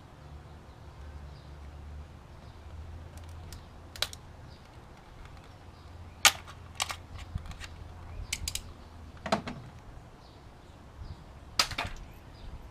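Irregular sharp metallic clicks and knocks of hand tools against metal while a spark plug is being fitted, the loudest about six seconds in and again near the end, over a low steady hum.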